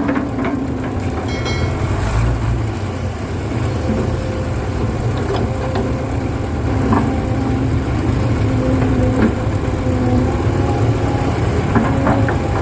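Excavator running steadily with a low rumble. A pitched hum swells and fades every second or two, and a few short knocks sound over it.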